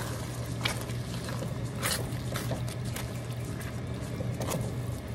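Metal spatula stirring sliced carrots and potatoes through a thick cream sauce in a wok: wet squishing and sloshing, with a few sharp scrapes and taps of the spatula against the pan, over a steady low hum.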